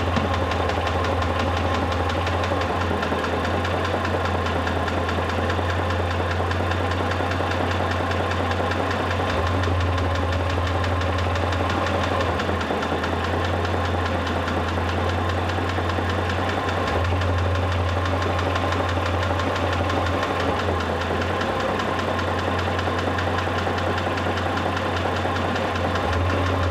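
Mitsubishi Pajero III's 6G74 3.5-litre GDI V6 engine running steadily at idle with a fast, even knock from inside the engine.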